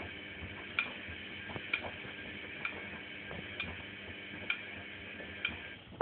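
Privileg Sensation 9516 washing machine running, with a steady hum and a sharp click about once a second.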